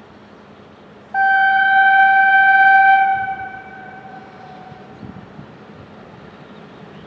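Horn of the blue MUS 1970 railcar: one single-tone blast starting suddenly about a second in, held steady for about two seconds and then fading out, over the low rumble of the approaching railcar.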